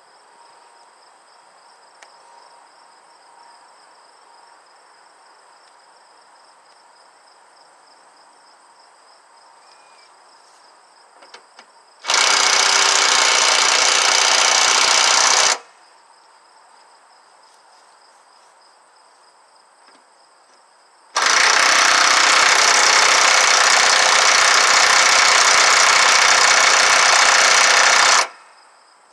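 Cheap 14.4-volt impact wrench, rewired to run off a jump pack, hammering on a wheel bolt. It runs in two loud bursts that start and stop abruptly, one of about three seconds and a later one of about seven seconds, with faint insect chirring in between.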